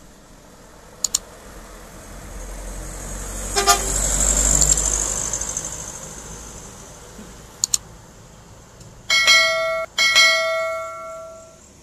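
A truck passes close by, its noise swelling and fading away, with a few short clicks. Near the end a truck horn sounds twice in a steady pitched tone, a blast of about a second followed by a longer one of about a second and a half.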